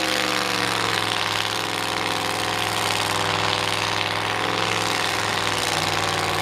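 Cadillac engine of an old International mud-bog pickup idling, its pitch easing down about a second in and then holding steady.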